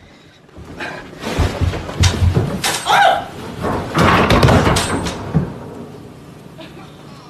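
A loud clatter of bangs and thumps lasting about four seconds, with a short cry near the middle.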